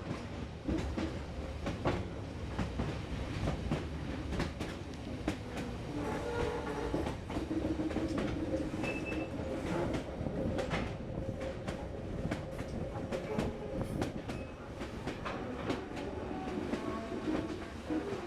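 Passenger train running on the rails, a steady rumble with frequent clicks and clatter of the wheels over the track.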